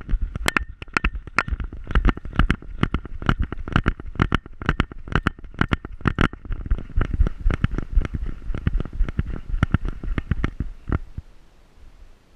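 Rapid, regular knocking and thudding from a camera harness on a running pointer dog, jolted with each galloping stride, with wind rumble on the microphone. The knocks stop about eleven seconds in as the dog slows.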